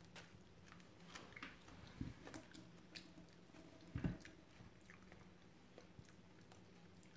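Faint chewing of a raw wild chard leaf: soft crunchy clicks, with two dull thumps about two and four seconds in.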